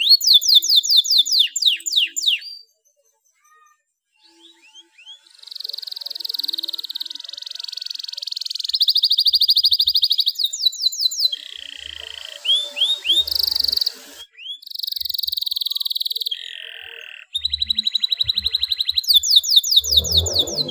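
Domestic canary in breeding condition singing: fast trills of repeated down-slurred high notes alternating with rolling, buzzy tours, broken by a silence of about a second after the opening trill.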